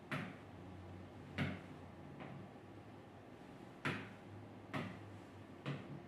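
About six short, sharp knocks at irregular intervals, the loudest about a second and a half in and near four seconds in, over a faint steady low hum.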